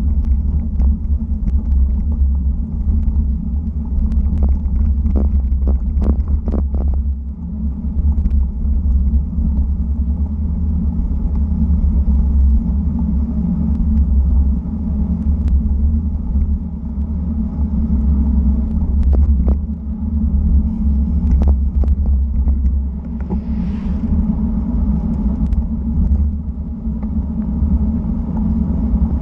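Wind rushing over an action camera's microphone on a road bike riding at 30 to 40 km/h, a steady low rumble, with scattered short knocks as the bike goes over the road.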